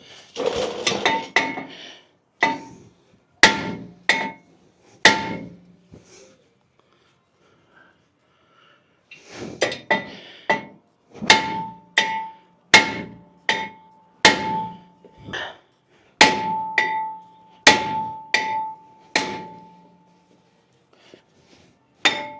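Hammer blows on a Ford F150's front brake rotor to knock it loose from the hub, each strike leaving a metallic ring. A first cluster of blows, a pause of a few seconds, then a longer run of strikes at about one and a half a second.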